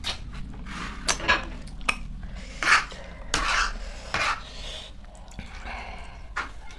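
Metal forks clinking and scraping on plastic plates while noodles are twirled and eaten, with short slurps of noodles in between; the sounds come in irregular short bursts.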